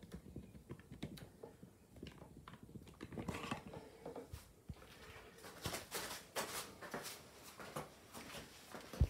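Handling noise from a camera being taken down off its mount and moved about by hand: irregular clicks, rustles and knocks, with one sharp, louder knock near the end.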